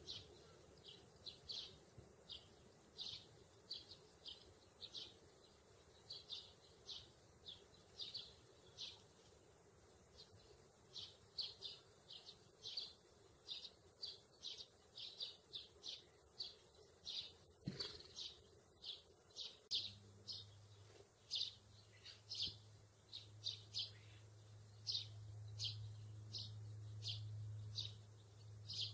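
Sparrows chirping: short, high single chirps repeating two or three times a second. A low steady hum joins in about two-thirds of the way through.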